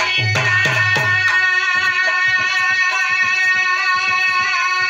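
Instrumental music: a harmonium holding sustained chords while a dholak keeps a quick steady rhythm, with a few heavy booming drum strokes in the first second or so.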